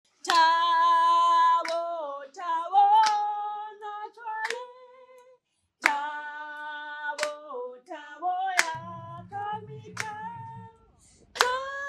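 A woman's voice singing unaccompanied, holding long notes and sliding between them, with a sharp clap about every second and a half. The singing breaks off briefly about five seconds in.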